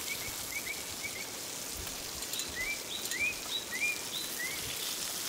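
A bird chirping repeatedly over a steady hiss. First come quick paired chirps; then, about two seconds in, a run of rising chirps about every half second.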